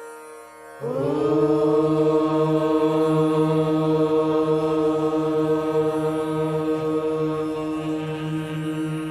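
Devotional prayer music: about a second in, a voice slides up into one long chanted note and holds it, over a steady drone that is there throughout.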